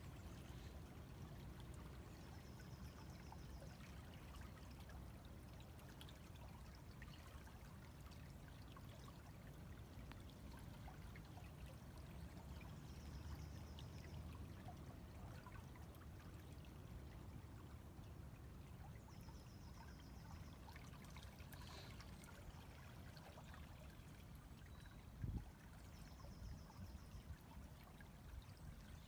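A river flowing steadily and faintly, with scattered small splashes. A bird's short high trill repeats four times, and a single low thump comes about 25 seconds in.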